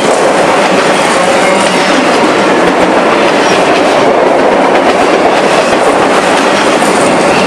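Freight cars of a Union Pacific manifest train rolling past close by: a loud, steady rumble and rattle of steel wheels on the rails.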